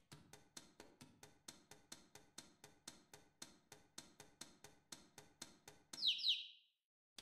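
Faint, even ticking, about four clicks a second, as a walking toy chick steps along, then two quick high chick peeps about six seconds in.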